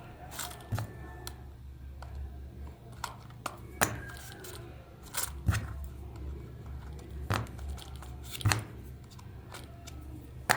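Scattered sharp clicks and light knocks of small metal tools and parts being handled during repair work, over a low steady hum.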